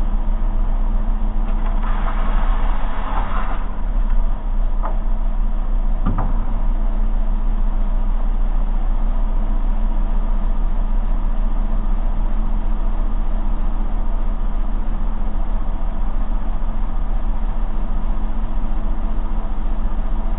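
Bench-top belt sander motor running with a steady hum. About two seconds in, a wooden cutout is pressed to the belt for a second or so of sanding noise, and there are two short sharp clicks around five and six seconds in.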